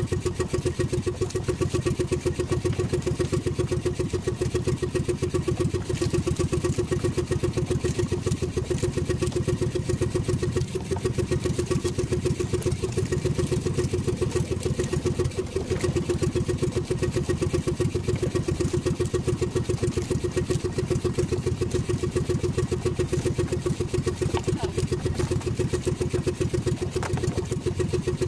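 Small engine of a motorized outrigger fishing boat running steadily, with a fast, even beat that does not change.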